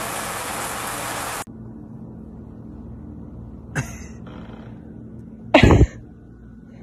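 A loud, steady rushing noise cuts off abruptly about a second and a half in. Near the end a person lets out one loud, sudden cough-like burst, preceded by a short sharp sound and a breathy intake.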